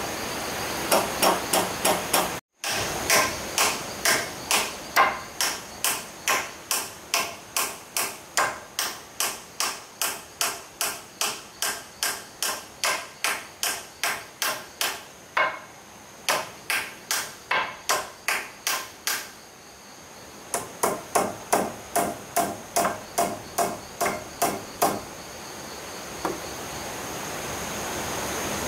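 A hammer striking repeatedly at about two blows a second, with a short break about two-thirds of the way through. The blows stop a few seconds before the end. A steady high-pitched insect whine runs underneath.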